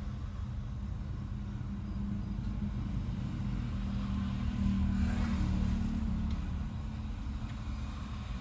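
A vehicle engine running steadily with a low rumble, swelling louder for a second or two about five seconds in.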